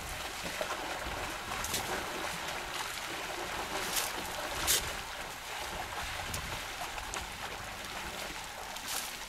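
Water splashing and sloshing as a herd of African elephants wades and drinks, with a few short, sharper splashes, the loudest a little under five seconds in.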